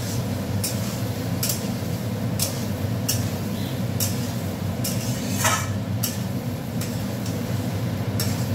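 Potatoes being stir-fried in a metal pan: a spatula scrapes and knocks against the pan about once a second, over a steady low rumble.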